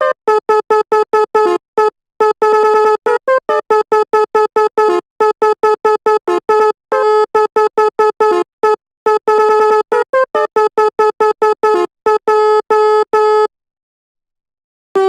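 Sampled telolet basuri bus horn played in FL Studio Mobile: rapid, stuttering horn blasts stepping between a few pitches in a short tune. It breaks off for about a second and a half near the end, then resumes with a longer blast.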